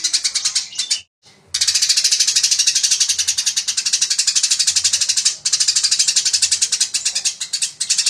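Eurasian tree sparrow chattering in a fast, dense 'fighting' run: high chirps repeated about eight a second. It stops briefly about a second in and pauses twice more for a moment later on.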